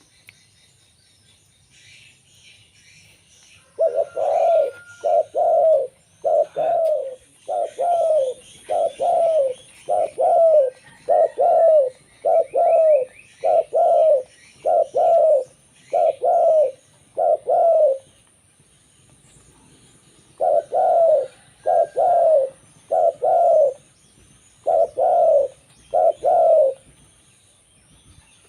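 Zebra dove (local perkutut) cooing: a long run of rapid, evenly spaced coo notes at about one a second, a pause of a couple of seconds, then a shorter run of about six more. Faint high chirping of small birds runs underneath.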